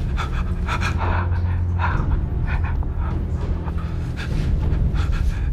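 A frightened man's heavy, uneven panting breaths, over a steady low drone.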